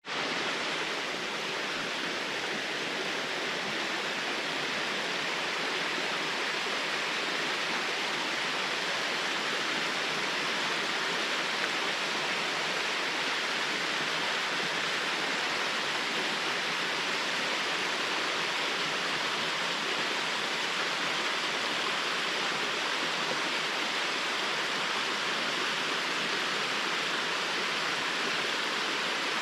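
Small waterfall's water falling and splashing, a steady, even rush.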